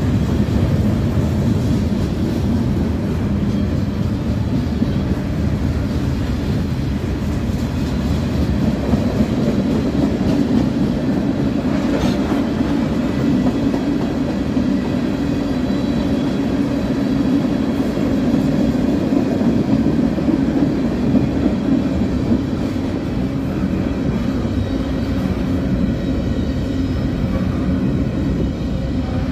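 Freight train of tank cars and covered hopper cars rolling past: a steady, loud rumble of steel wheels on rail, with one sharp clack about twelve seconds in.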